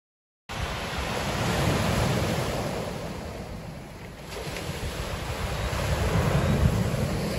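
Sea surf washing ashore, with wind on the microphone. It starts suddenly about half a second in, swells, eases about halfway through, and builds again.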